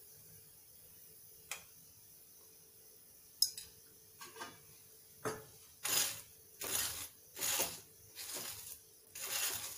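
Metal spatula scraping against a tawa (flat griddle) under a paratha in about six short strokes over the last few seconds, after a couple of sharp clicks.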